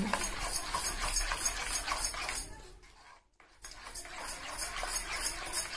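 Metal spoon stirring a yogurt and spice marinade in a bowl: a rhythmic scraping and clicking of about three to four strokes a second. It cuts out to near silence for about a second a little past the middle.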